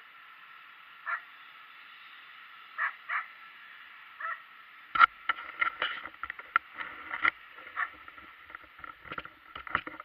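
Muffled clicks, knocks and rubbing from an action camera being handled and moved, starting about halfway through and running on in quick irregular strokes. Before that, only a steady thin hiss with a few short faint sounds.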